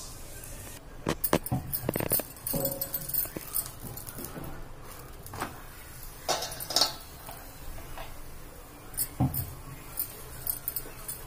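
Bangles on a moving wrist clinking and jingling in scattered small clinks while the hand presses and turns a paratha on a tawa.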